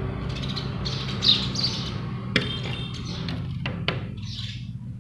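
House sparrows chirping: short chirps in the first second and a half and again near the end, over a steady low hum, with a few sharp clicks in between.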